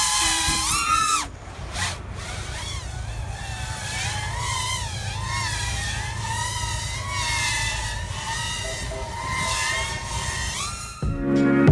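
Quadcopter drone's propellers and motors buzzing, a high whine whose pitch keeps wavering up and down as the motors change speed; louder for the first second or so, then quieter. Music comes in just before the end.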